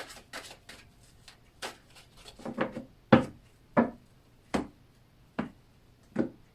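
Tarot cards being handled: a few light flicks of shuffling, then a row of about seven sharp taps, roughly one every three-quarters of a second, as cards are laid down one at a time on a table.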